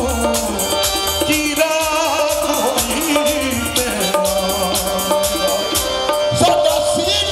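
Qawwali: male voices singing over a harmonium's held chords, with hand-clapping and percussion beating out the rhythm.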